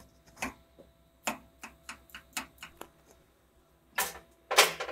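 Hand tools clicking and tapping against the steel parts of a CNC machine in an irregular run of sharp clicks, then two louder knocks near the end.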